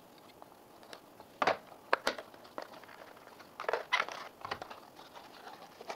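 Cardboard retail box being slit with a utility knife and its flap pulled open by hand: scattered short scrapes, clicks and crinkles of card, loudest about a second and a half in and again around four seconds in.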